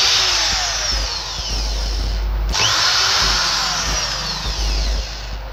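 Cordless drill-driver backing out the screws that hold an induction cooker's circuit board: two runs, each starting with a rising whine, with a short pause about two seconds in.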